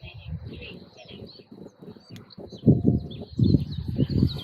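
Wind buffeting the microphone in uneven gusts, heavier from about two and a half seconds in, with birds chirping in the background.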